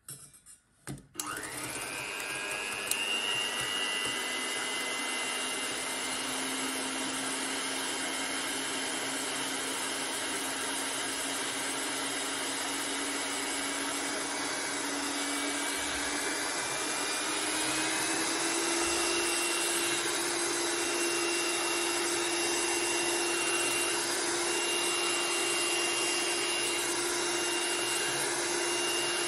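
Electric hand mixer whipping egg whites in a stainless steel bowl for French meringue. A few clicks about a second in, then the motor runs steadily, its pitch rising slightly and the level rising a little a bit past halfway.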